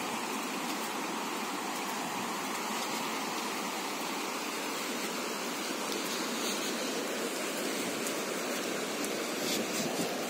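Swollen, muddy floodwater rushing past in a river in spate: a steady, even rush of water.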